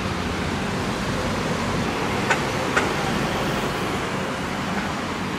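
Steady city street traffic, cars passing on the road below, heard through an open window, with two sharp clicks a little after halfway.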